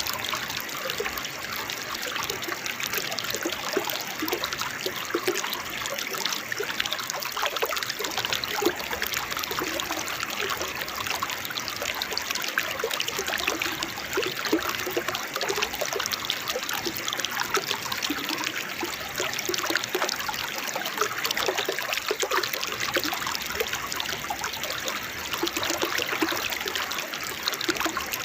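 Small waterfall, its water trickling and splashing steadily over rocks with a bright, babbling patter.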